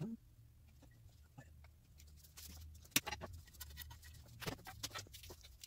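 A man's heavy breathing close to the microphone, with rustling and a sharp click about three seconds in, over a steady low hum.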